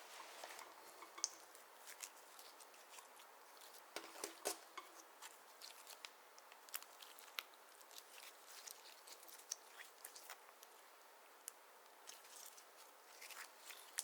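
Clear slime worked by hand, giving faint sticky clicks and small pops scattered irregularly throughout, with a denser cluster about four seconds in and again near the end.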